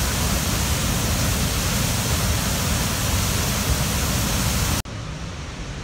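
Tahquamenon Falls: a loud, steady roar of white water churning at the foot of the falls. About five seconds in it cuts abruptly to a quieter, duller rush of water.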